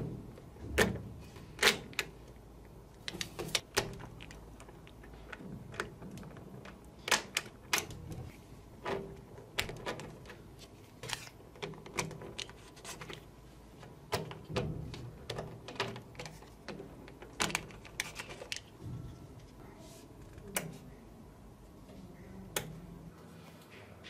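Small magnetic balls clicking against each other as hands press and shape a block of them with a white card: irregular sharp clicks, a few each second, over soft handling noise.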